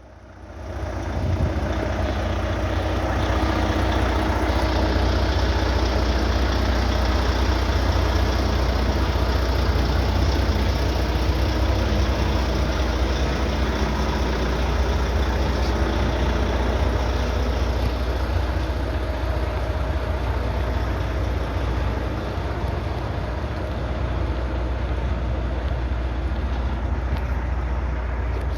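Volvo semi-truck's diesel engine running with a heavy, steady low drone and broad road noise. It comes up quickly about a second in, then holds almost unchanged.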